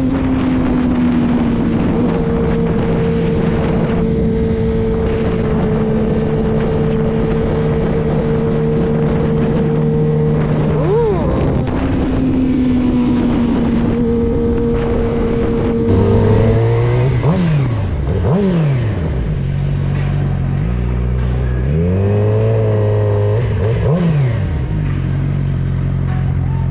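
Suzuki GSX-R600 inline-four engine running at steady revs, blipped up and straight back down twice. About two-thirds of the way through it settles to a lower note and revs up and down in several short blips.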